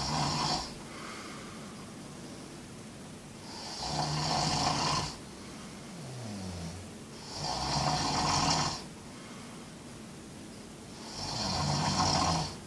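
A sleeping person snoring in a steady rhythm, one long snore about every four seconds: three full snores, each a low buzz with a breathy hiss, plus the end of another just as it begins.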